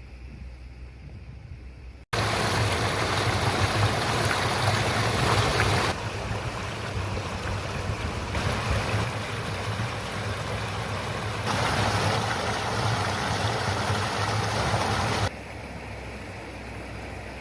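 Shallow brook babbling, a steady rush of running water. The level jumps up sharply about two seconds in, shifts several times and drops back near the end as the takes change.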